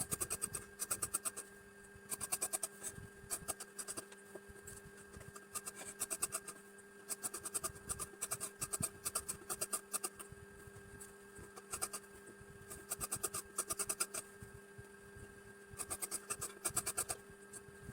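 Tailor's scissors cutting blouse fabric: quick snips in short runs, with brief pauses between the runs.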